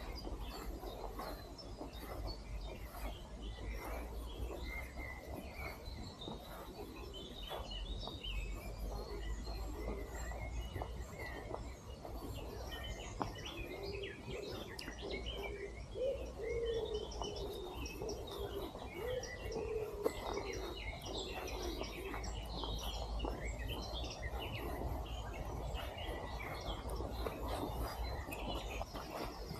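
Several songbirds chirping and singing in a forest, many short high calls overlapping, with a lower wavering call joining in around the middle. Short clicks and rustles run underneath.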